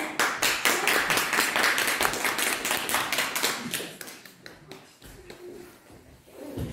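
A small audience clapping, individual claps distinct, dying away about four seconds in; then only faint scattered noises.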